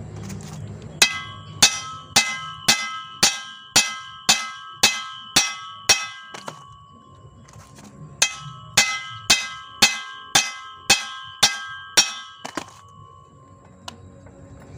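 Claw hammer striking the steel yoke of a Toyota Kijang propeller shaft, about two blows a second in two runs of roughly eleven and eight, each blow ringing with a clear metallic tone. The blows are knocking out the bearing caps of the original, hard-to-shift universal joint (cross joint).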